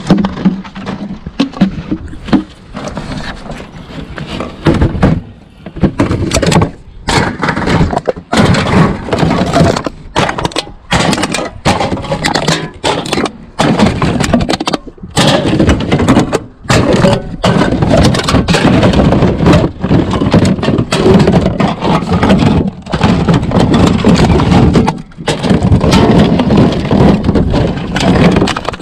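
Plastic drink bottles, metal cans and clear plastic clamshell containers clattering and crinkling as gloved hands rummage through a plastic recycling bin, in a dense run of sharp knocks and rustles.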